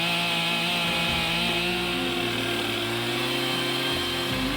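Chainsaw held at high, steady revs while cutting through the trunk for the back cut of a felling cut, above the wedge and leaving a hinge.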